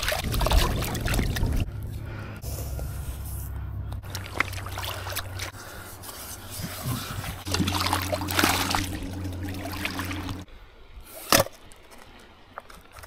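River water splashing and sloshing as a small camp pan is dipped, rinsed and scrubbed by hand at the water's edge, with scraping against the pan. A steady low hum runs underneath until about two-thirds of the way through, and there is one sharp knock near the end.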